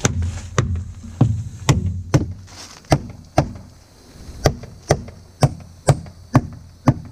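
Claw hammer driving nails into new plywood roof decking: about a dozen sharp blows, roughly two a second, in short runs with brief pauses between nails.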